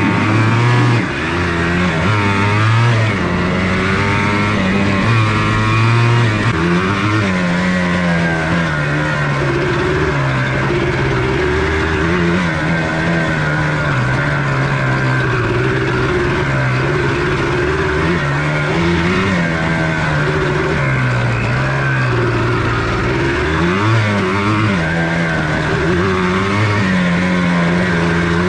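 1994 Yamaha Blaster 200's two-stroke single-cylinder engine running under riding load, its revs climbing and dropping again and again.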